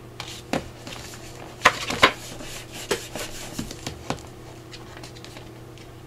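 Paper and cardstock being handled and pressed flat on a tabletop: light rubbing and rustling with a few short sharp taps and clicks, the two loudest close together a little under two seconds in.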